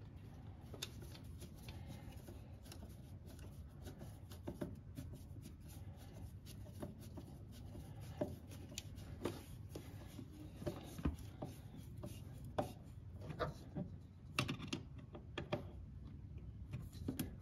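Screwdriver tightening the hose clamps on a fuel filter's lines: faint, scattered small clicks and scrapes of metal over a low steady hum.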